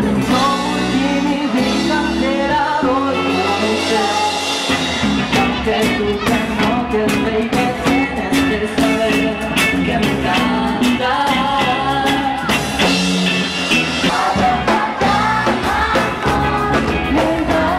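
Upbeat Latin pop song with singing; a fast drum beat comes in about five seconds in.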